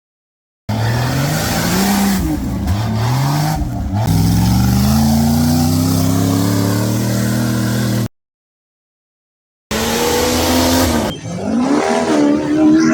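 Off-road race vehicle engines revving hard, pitch rising and falling in quick blips, then climbing steadily for about four seconds as a vehicle accelerates; the sound cuts out completely twice, briefly, between edited clips.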